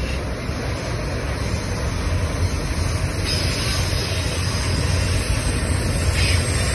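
Freight cars of a Norfolk Southern manifest train rolling past close by: a steady low rumble of steel wheels on rail. A faint high whine joins about halfway through.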